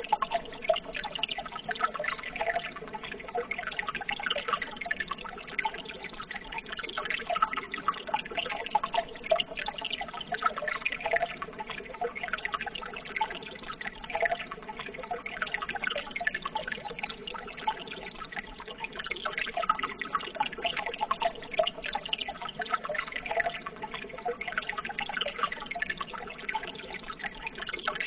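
Water trickling and burbling steadily, a dense patter of small splashes and drips with no let-up.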